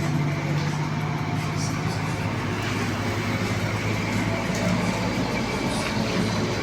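Heavy diesel road-paving machinery running steadily, a low engine drone with an even rumble.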